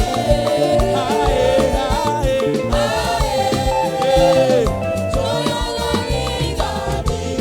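Live up-tempo praise band music, African gospel style, with a steady drum and bass beat under long held melody notes that slide between pitches.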